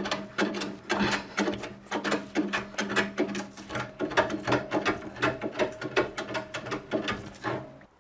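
A plane shaving down the rim of a large oak disc in quick, repeated strokes over a steady hum, stopping just before the end. It is trimming the edge so the disc clears the lathe bed it was hitting.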